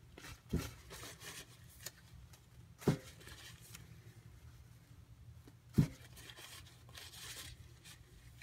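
An AUS-8 steel knife blade is worked by hand in short, soft scraping strokes, with three sharp knocks spread about three seconds apart, the last two the loudest.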